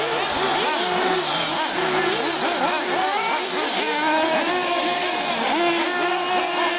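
Several 1/8-scale nitro R/C buggies and short-course trucks racing, their small high-revving engines overlapping as each one revs up and drops off again through the corners.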